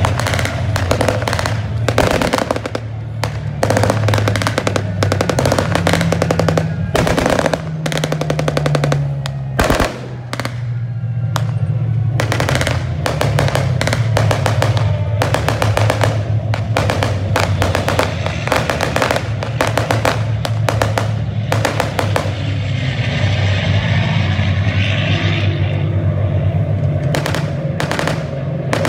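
Automatic gunfire in rapid strings of shots, broken by short pauses, with music playing underneath.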